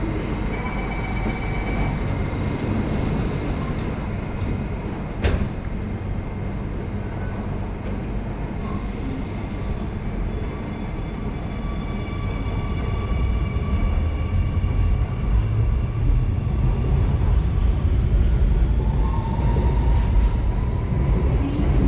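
Singapore MRT train at an underground platform: a steady warning tone, then the doors shut with a sharp knock about five seconds in. The train then pulls out, its rumble growing louder from about halfway through, with a rising motor whine near the end.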